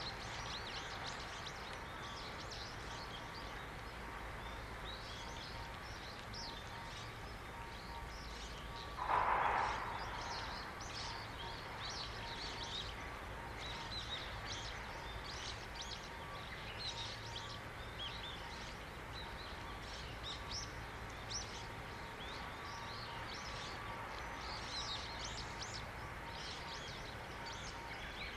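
Many small birds chirping and singing over a steady distant background hum. About nine seconds in, one louder sound lasts about a second.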